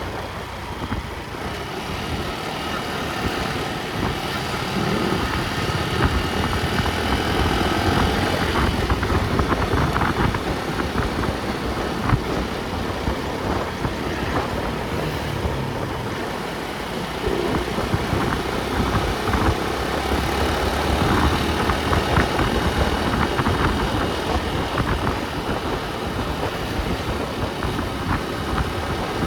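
Motor vehicle travelling along a road: steady engine and road noise with a low rumble, growing a little louder for a few seconds at a time.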